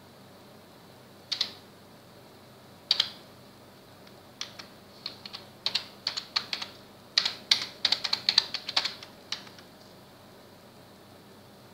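Typing on a computer keyboard: two separate key clicks in the first few seconds, then a quick run of keystrokes lasting about five seconds before it stops.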